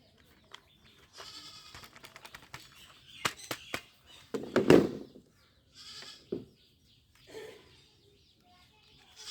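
Animal calls, the loudest about halfway through, with a few sharp clicks just before it.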